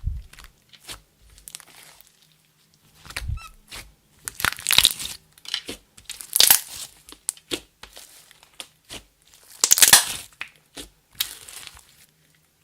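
Slime being squished and folded by hand: irregular sticky clicks and crackling pops, with a few louder squelching bursts.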